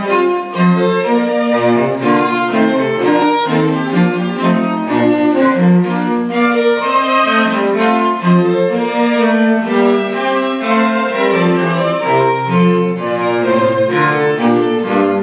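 A string quartet playing live, violins and cello bowing a brisk passage of quick notes over a moving cello line.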